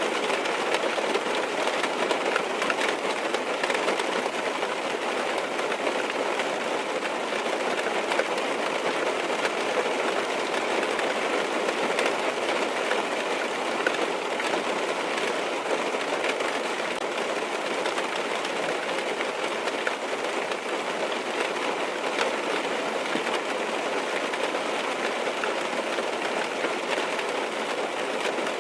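Steady rain falling on a car's roof and windows, heard from inside the car as an even patter with faint scattered ticks.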